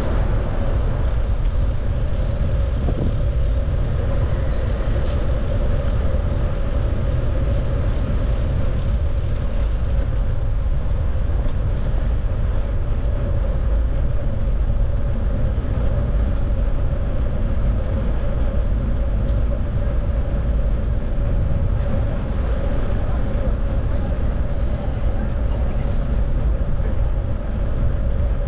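Steady rush of wind and road noise on the microphone of a camera carried on a moving bicycle, with city street traffic underneath.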